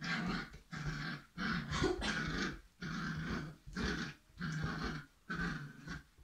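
Irish setter puppy growling in a string of short growls, one after another, while tugging on a rope toy.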